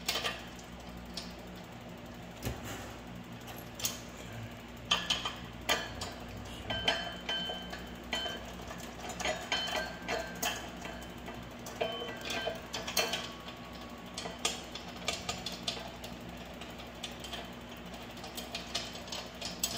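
Irregular small metal clicks and clinks of a washer and axle nut being handled and threaded by hand onto a mini bike's rear axle bolt, a few of them ringing briefly.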